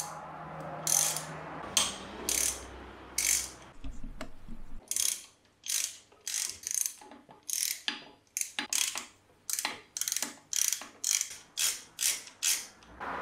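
Ratchet wrench clicking in repeated strokes as it backs out bolts on the water pump bracket of an RB30 engine block. The strokes are spaced out at first, then quicken to about three a second in the second half.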